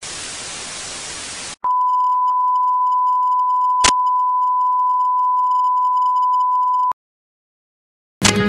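TV static hiss for about a second and a half, then a steady high beep tone held for about five seconds with a click near the middle, cut off suddenly. After a second of silence, guitar music starts near the end.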